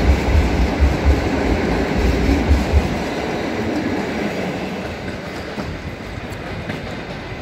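PKP Intercity passenger coaches of a departing train rolling past on the tracks: wheels clattering over the rails with heavy low thumps for the first three seconds, then a steadier rumble that fades as the end of the train draws away.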